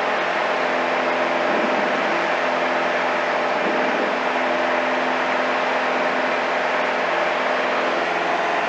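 Single-engine light aircraft's piston engine and propeller running steadily at climb power, heard inside the cockpit as a constant drone with a steady hum in it.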